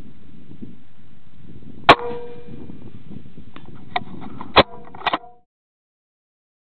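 .223 Remington bolt-action rifle fired twice, the shots about two and a half seconds apart, with a ringing tone after each and a small click between them. Two smaller sharp knocks follow just after the second shot. Wind rumbles on the microphone throughout, and everything cuts off suddenly near the end.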